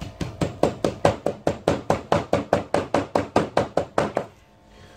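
Rapid, even chopping taps on a hard surface, about six a second, as Hot Fries are chopped down into a fine powder. The taps stop a little after four seconds in.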